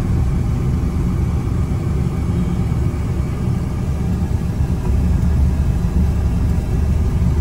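Steady low rumble of a car's engine and road noise heard from inside the cabin while the car creeps along in heavy traffic.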